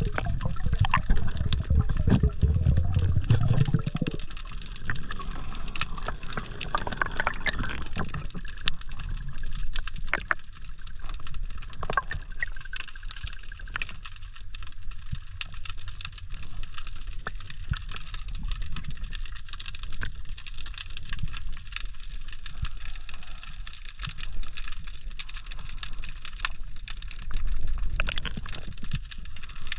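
Water sound as heard on an underwater camera during a dive: a muffled, rumbling wash with many scattered sharp clicks. The rumble is heavier for the first few seconds.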